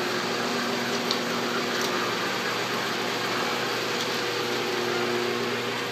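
Steady machinery and fan hum of a 35 mm cinema projection booth, an even noise with a few constant low hum tones, broken by a few faint clicks.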